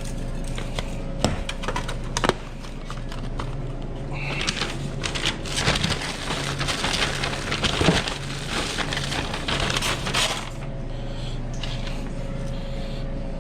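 Line-kitchen prep clatter: a few sharp knocks, then about six seconds of dense crackling and clicking, over a steady hum of kitchen equipment.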